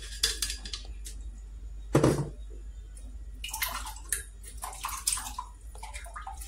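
Coconut milk splashing and dripping into a bowl as blended coconut is squeezed by hand through a strainer, in short irregular bursts, with one louder thud about two seconds in.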